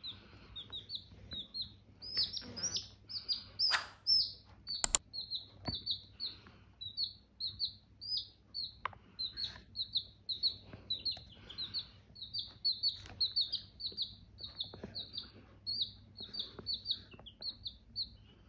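Baby chicken chicks peeping, a steady stream of short high cheeps, about three a second. Two sharp clicks about four and five seconds in.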